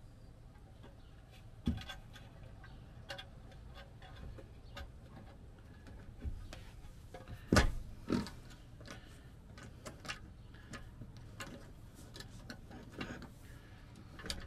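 A drop-in sink being set into its countertop cutout and nudged into place by hand: scattered light taps and clicks, with one knock about two seconds in and two louder knocks a little past the middle, about half a second apart.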